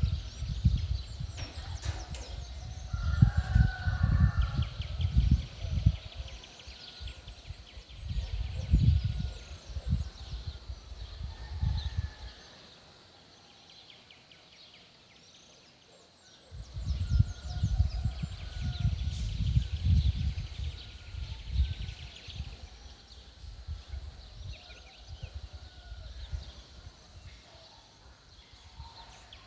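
Birds calling and trilling, with wind buffeting the microphone in gusts that drop away for a few seconds about halfway through.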